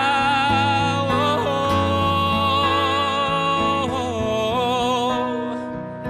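Male vocalist singing a live ballad, holding a long note with vibrato and then stepping down to lower notes, over acoustic guitar and keyboard accompaniment; the phrase fades near the end.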